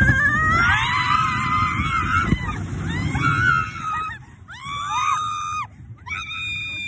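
Several people screaming together in long, high screams that overlap, rise and fall. A second burst comes about four and a half seconds in and a held scream near the end, over a steady low rumble.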